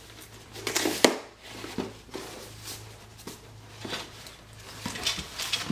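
Hands working at a taped cardboard box: scattered rustling and scraping as packing tape is picked at and pulled, with a sharp snap about a second in. A steady low hum runs underneath.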